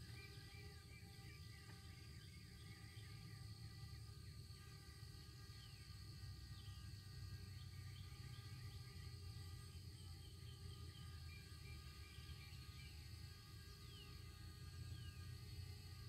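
Faint steady whine of a DJI Spark quadcopter with prop guards, hovering about 100 feet up, over low wind rumble and scattered faint chirps.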